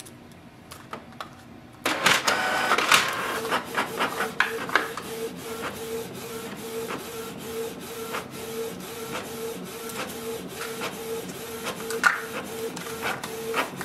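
Canon PIXMA TS3750i inkjet printer making its first print after initial setup. After a quiet couple of seconds the paper feed engages with a clatter, then the print head runs back and forth in a steady, even rhythm of repeated passes and clicks as the sheet feeds out.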